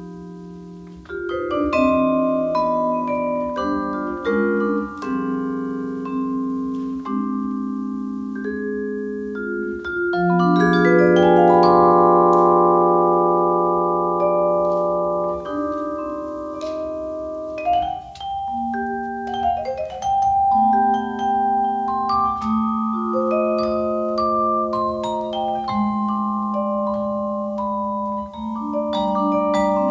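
Yamaha vibraphone played solo with mallets in a slow blues. Chords and melody notes ring on for several seconds each, and the loudest held chord comes about ten seconds in.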